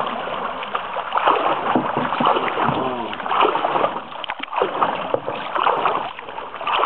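Canoe paddle strokes splashing and dripping in the water, with frequent light knocks.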